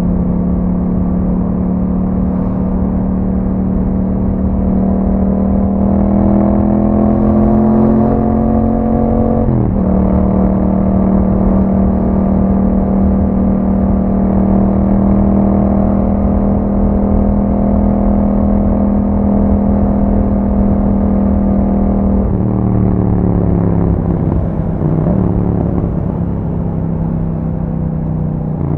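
Yamaha MT-07's parallel-twin engine through an Akrapovic exhaust, under way. The revs climb slowly for about ten seconds, drop suddenly at an upshift, hold steady at cruise, then fall away about two-thirds of the way through.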